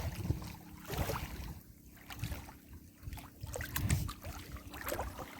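Small waves lapping and splashing against a stony lake shore, with wind buffeting the microphone in irregular low rumbles.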